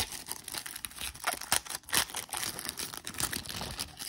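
Crinkling and tearing of a trading-card pack's wrapper as it is ripped open and crumpled by hand, with a few sharp knocks from a hand bumping the camera.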